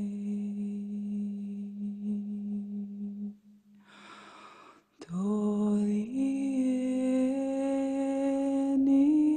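Slow, soft background music of long held notes, with a brief drop to near silence about three and a half seconds in before a new note enters and steps upward twice.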